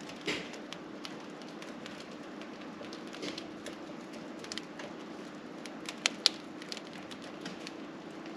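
Freshly baked crusty loaves crackling as they cool, the bread 'singing': scattered sharp ticks and pops from the crust, a couple of louder pops about six seconds in, over a steady low hum.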